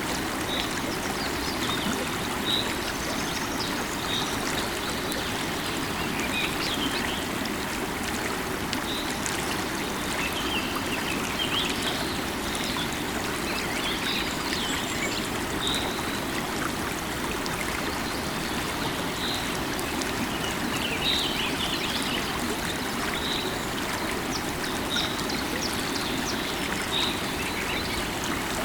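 Steady rush of a flowing river, with short high bird chirps every second or two.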